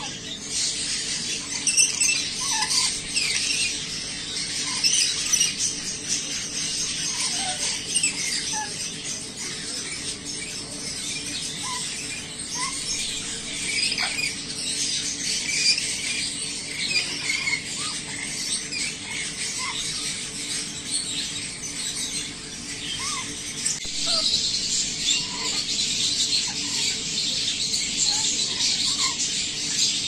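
Rainbow lorikeets chattering: a continuous stream of high-pitched squeaky chirps and twitters, with scattered short calls.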